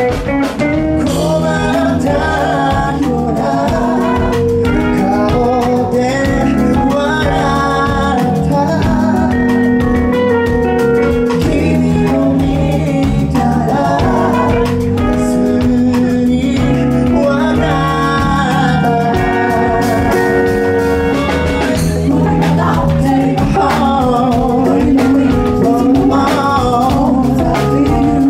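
Live band playing a pop song: singers at microphones over guitar, bass and drum kit.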